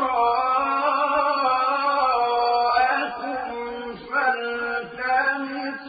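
Male reciter chanting the Quran in the melodic mujawwad style, holding drawn-out ornamented notes that bend slowly in pitch, with brief breaks about four seconds in and again near five seconds.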